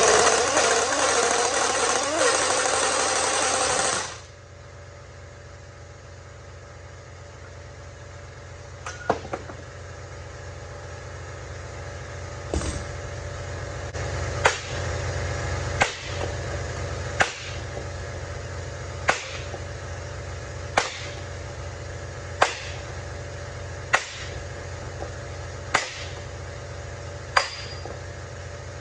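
A heavy air impact wrench hammers on a leaf-spring nut for about four seconds and then stops suddenly. After that a steady low hum is left, and sharp metal hammer blows land about every second and a half.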